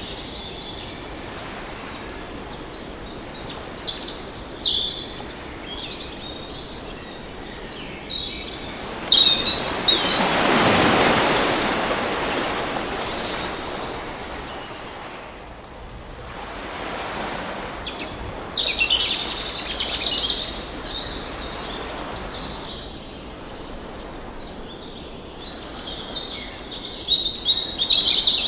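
Birds calling and chirping with short, quick sweeping notes over a steady wash of surf. A wave swells and dies away about ten seconds in, and a smaller one follows around seventeen seconds, with a burst of bird calls near the end.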